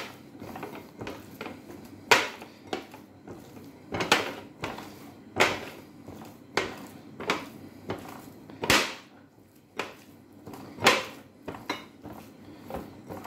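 Hand mixing chopped raw chicken with paprika in a glass bowl: irregular knocks and clinks against the glass, roughly one every second or two.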